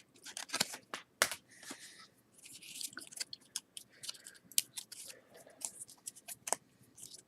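Trading cards being handled and a card slid into a rigid plastic top loader: scattered sharp clicks and short scraping rustles of card stock against plastic.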